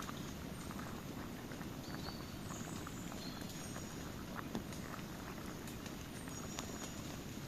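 Wood campfire burning: a steady low rush of flame with scattered sharp crackles and pops.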